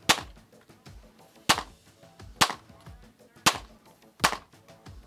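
Glock pistol fired five times at a steady pace, about one shot a second, each shot a sharp crack with a short echo.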